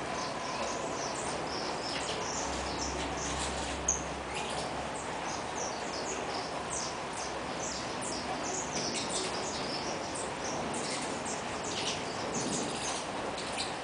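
Saffron finches chirping: many short, high chirps in quick, irregular runs over a steady background noise, with one brief click about four seconds in.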